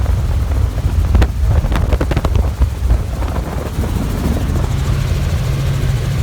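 Helicopter running: a loud, steady low drone of rotor and engine. A few short clicks come between about one and two and a half seconds in, and a steady low hum joins about four seconds in.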